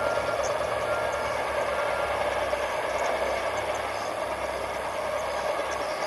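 Steady outdoor background rumble and hiss, with faint high ticks of insects now and then.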